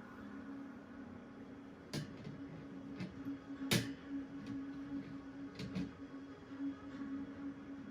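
Electric box fan motor humming steadily, with several sharp clicks and knocks from handling the fan, the loudest about halfway through.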